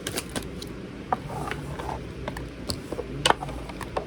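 Tarot cards being shuffled and handled: a run of irregular light clicks and taps, the loudest about three seconds in.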